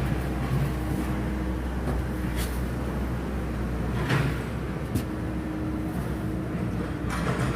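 Steady low hum of running machinery with a few light knocks, one about four seconds in and one about five seconds in.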